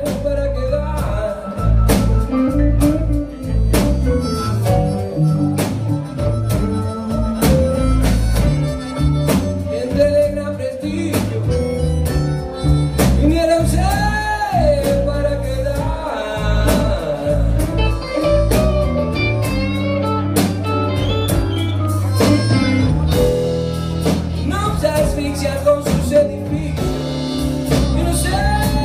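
A band playing a bluesy song live, with drums, bass and guitar under a lead line of held notes that bend up in pitch.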